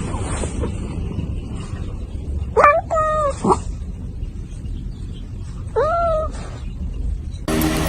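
A cat meowing: two meows close together about two and a half seconds in, and a third about six seconds in, each rising and then holding its pitch, over a low rumble. Near the end the sound cuts abruptly to a louder, different noise.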